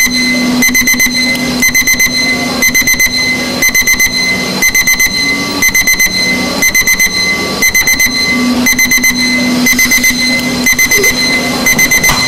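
Electronic alarm clock beeping in quick bursts of short high beeps, the bursts repeating about every half second without stopping, over a low steady hum.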